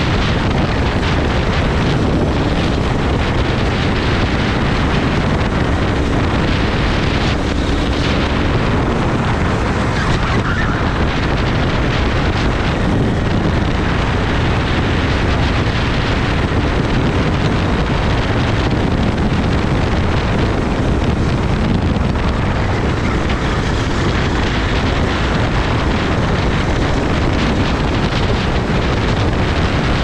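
Racing kart engine running at speed, half buried under heavy wind buffeting on the microphone.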